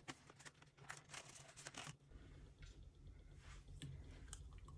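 Near silence with faint rustles and light taps of hands handling paper cash and plastic binder envelopes on a desk.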